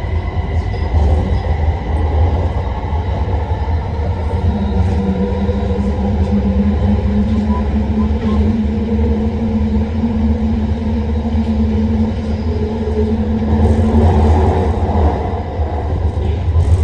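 Metro train running: a steady low rumble, with a hum holding one pitch from about a quarter of the way in until near the end.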